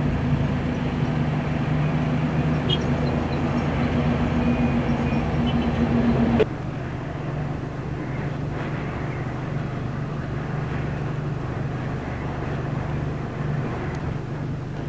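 Outdoor ambient noise with a steady low engine hum. It drops abruptly to a quieter, similar hum about six and a half seconds in.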